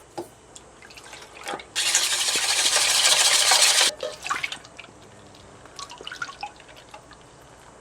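Liquid, most likely milk, poured steadily into a bowl for about two seconds, with light clicks and taps of kitchenware before and after.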